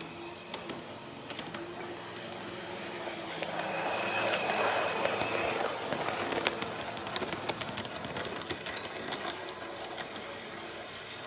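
Heljan Class 128 parcels railcar model running along the track. Its motor hum and wheel noise grow loudest as it passes close, about four to six seconds in, then fade as it moves away, with a run of light clicks over the track.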